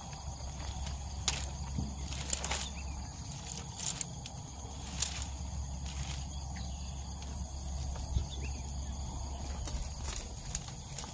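A few light knocks and rustles of bamboo slats being handled and set down in shallow water, over a steady high insect drone and a low rumble.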